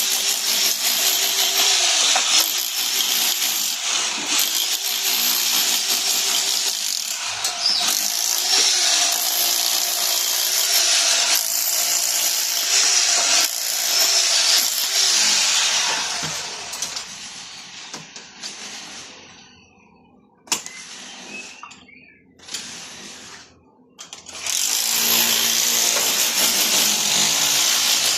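Electric power tool running under load, its motor pitch dipping and recovering over and over. It winds down about two-thirds of the way through, gives a few short bursts, then runs steadily again near the end.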